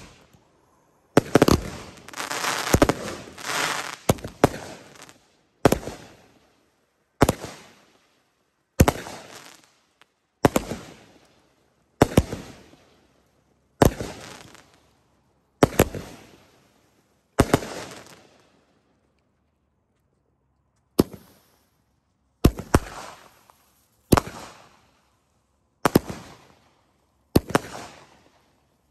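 Consumer fireworks going off: a string of sharp bangs, about one every one and a half to two seconds, each trailing off over about a second. There is a dense burst of crackling from about a second in to about four seconds in, and a pause of about three seconds shortly after the middle.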